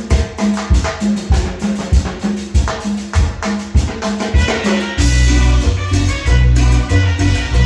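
Instrumental intro of a cumbia song: a steady percussion beat with a repeated low note, then about five seconds in the full band with bass comes in louder.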